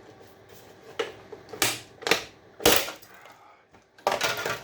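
A clip-together casing of an electrical part being pulled apart by hand: several sharp cracks and clacks, about four in two seconds, followed by a short scuffing noise near the end.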